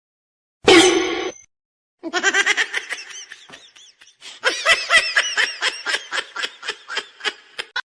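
Laughter: one short loud burst, then a long run of quick repeated ha-ha pulses, about four a second.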